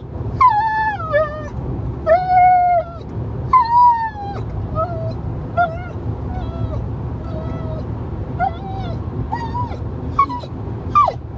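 Dog whining in a string of high, mostly falling cries: three long ones of about a second each in the first half, then about eight shorter ones, over a steady low rumble.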